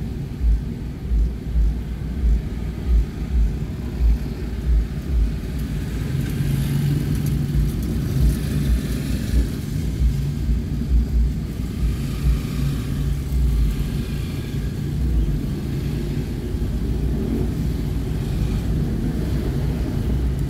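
Road traffic heard from inside a car moving slowly in town traffic: a steady low engine and road rumble, with a run of low thumps about twice a second through the first half.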